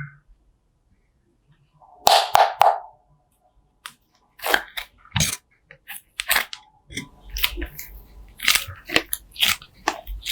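Slime being squeezed and poked, making crunchy crackles and sharp clicking pops. It is quiet at first, with one short burst about two seconds in, then a busy run of clicks and crackles from about four seconds in.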